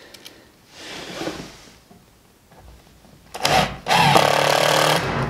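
Cordless drill-driver driving a screw through a furnace mounting bracket: a short spurt about three and a half seconds in, then a steady run from about four seconds in.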